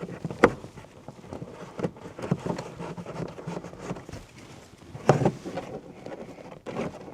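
Plastic C-pillar trim being worked with a trim tool while a cable is pushed in behind it: irregular clicks, knocks and rustling, with the sharpest knocks about half a second in and again about five seconds in.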